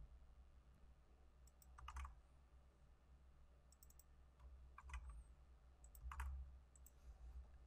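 Faint typing on a computer keyboard: a few short, scattered clusters of keystrokes, typical of entering a username and password.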